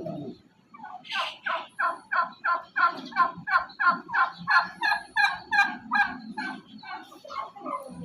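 Domestic turkey calling: a long run of quick repeated notes, about three a second, starting about a second in and tailing off near the end.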